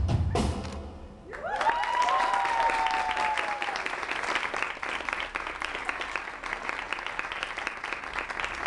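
The last beat of drum-backed music, then after a short pause an audience starts applauding, with one long held cheer from a single voice over the first couple of seconds of clapping.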